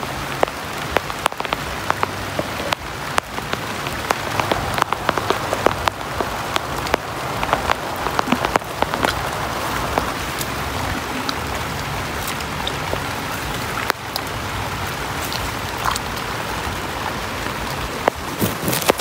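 Heavy rain falling steadily, with many sharp taps of drops striking close by.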